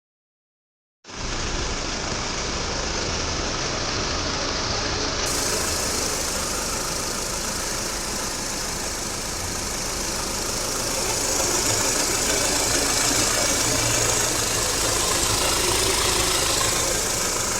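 2014 Audi Q5's engine running steadily, starting about a second in.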